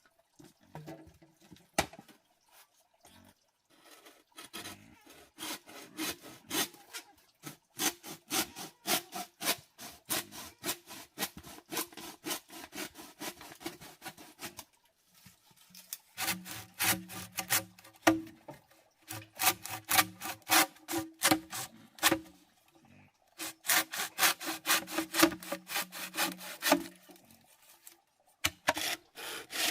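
Quick, rhythmic back-and-forth scraping strokes, as of hand sawing, in three runs of several seconds with short pauses between them.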